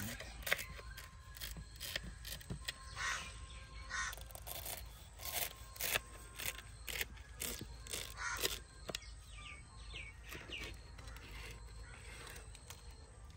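Knife cutting through a crisp baked kunafa crust of shredded pastry, with many short irregular crackles and crunches. Birds chirp in the background, most clearly about two-thirds of the way in.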